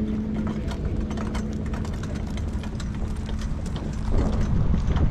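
Hoofbeats of a harness horse going at speed on the track, heard from the cart behind it as a fast run of sharp clicks over a steady low rumble. The rumble grows louder near the end.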